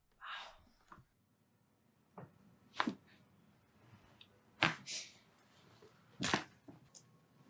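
A handful of short, sharp sounds a second or two apart during a chiropractic adjustment, over a quiet background.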